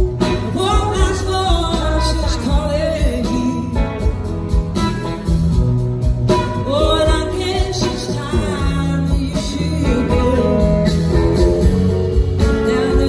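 Live rock band playing, with a woman singing lead over electric guitars, bass and drums.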